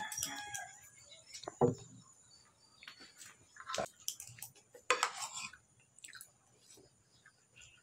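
The tail of a rooster's crow, cut off about half a second in. Then a spoon clinks and scrapes now and then on a plate during eating.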